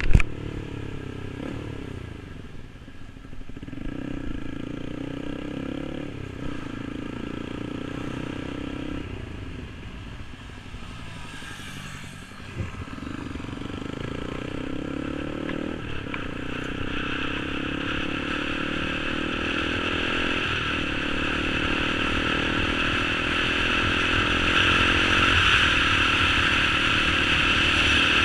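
Yamaha R15 V3's single-cylinder engine through a tuned SC Project exhaust, pulling up through the gears: the pitch climbs, drops at each shift every few seconds, and climbs again. Wind noise grows as speed builds, and a sharp crack sounds at the very start.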